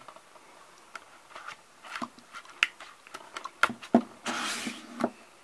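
A plastic DVD case and its cardboard slipcover being handled: scattered clicks and taps, and a short sliding scrape a little past four seconds in as the case goes into the slipcover.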